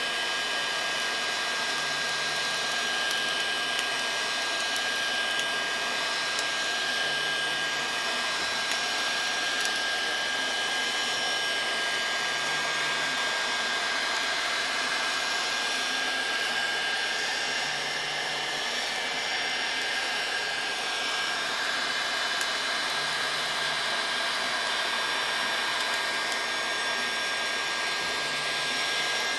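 A 1,500-watt Mastercraft heat gun running steadily, blowing hot air onto a steak: a constant rush of air with a thin, high, steady whine.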